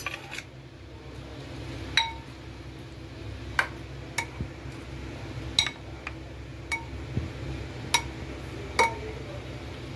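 A white ladle stirring yogurt raita in a bowl, clinking against the bowl's side about seven times at uneven intervals, each clink with a short ringing note.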